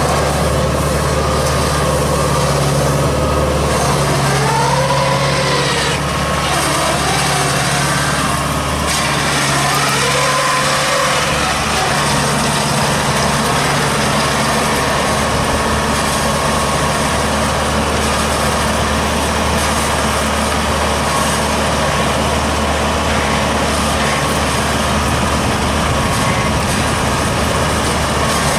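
Engine of a straw-gathering machine converted from an old rice harvester, running steadily as the machine works.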